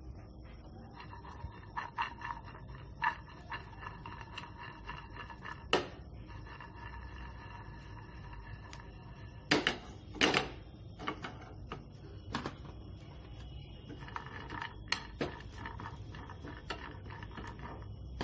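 Walnut halves frying in a little olive oil in a nonstick pan: a light crackle of many small ticks over a steady low hum, broken by a few louder knocks and scrapes as a spatula stirs the nuts around the pan near the middle.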